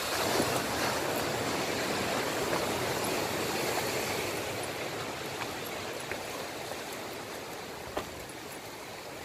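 Sea surf washing over a rocky, boulder-strewn shore: a steady rush that swells over the first few seconds and then slowly eases off. A single sharp click sounds about eight seconds in.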